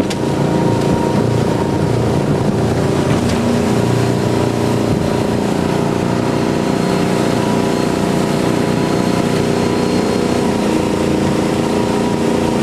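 Hydrodyne ski boat's big V8 inboard engine running at a steady speed, its pitch holding level.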